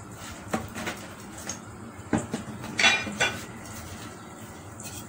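Kitchen cookware clattering on the stovetop: a nonstick frying pan being handled with the oil in it, giving about seven sharp knocks and clinks. The loudest comes about three seconds in and rings briefly like metal.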